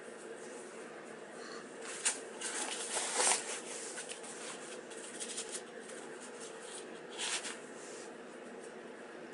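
Nylon fabric and drawstring cord of a mukluk rustling and scraping as hands pull and work the laces, with a cluster of rustles about two to three and a half seconds in and another short one about seven seconds in.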